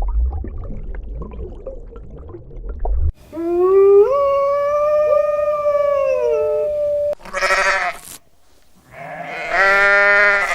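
A run of farm-animal calls: a low rumbling stretch, then a long drawn-out call of about four seconds that rises and then falls in pitch, a short harsh call, and near the end a wavering bleat.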